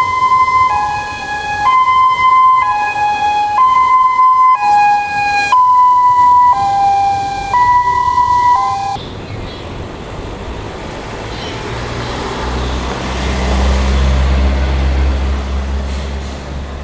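Ambulance hi-lo siren, switching between a high and a low note about once a second; it stops about nine seconds in. After that there is street traffic, and a passing van's engine hum grows louder near the end.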